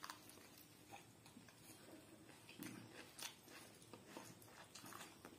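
Faint sounds of a man biting into an egg roll and chewing it, with scattered soft clicks.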